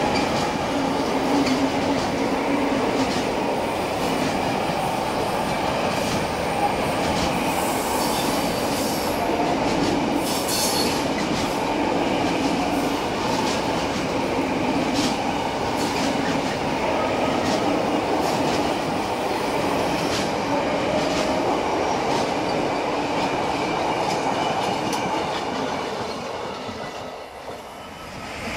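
Container wagons of a CargoNet intermodal freight train rolling past: a steady rumble and rattle of wheels on rail with scattered clicks, and brief high squeals about eight and ten seconds in. The noise fades near the end as the last wagon passes.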